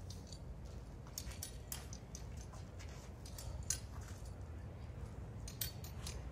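Scattered light scuffs and clicks from footwork on asphalt and handling of a guandao polearm, the loudest nearly four seconds in, over a low steady outdoor rumble.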